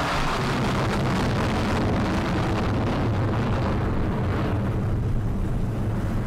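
Jet aircraft roar, a dense rushing noise over a low rumble. The higher part fades from about four seconds in, as if the plane is passing and going away, and the low rumble carries on.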